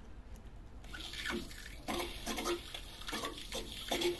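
Water hissing through the just-opened filling valve into an ECA Calora Premix combi boiler, starting about a second in with uneven gurgles, as the heating circuit refills after its pressure dropped below 0.9 bar (the F47 low-water error).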